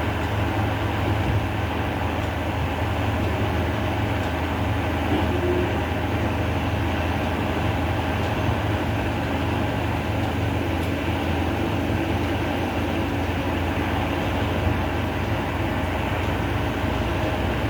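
Steady low rumbling background noise with a faint hum over it.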